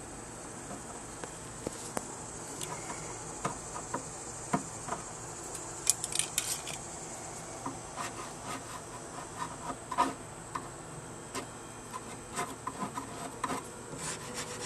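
Old wood-grain vinyl covering being peeled and picked off a speaker cabinet: irregular small crackles, snaps and rubbing as pieces tear and break away, over a steady faint high hiss.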